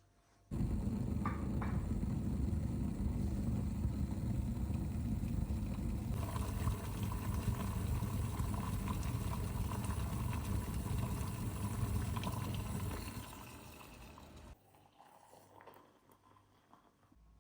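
Water running from a tap, turned on sharply and running steadily for about fourteen seconds before it is shut off.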